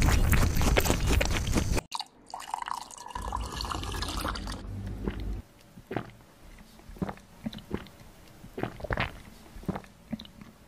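A rabbit eating watermelon: a dense run of crunching clicks that stops abruptly about two seconds in. Later, water dripping from a clay teapot as a rabbit drinks at its spout: scattered single drips and licks, one or two a second.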